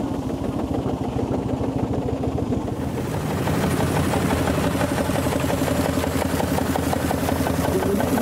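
An engine running with a rapid, steady pulsing, growing louder and noisier about three seconds in.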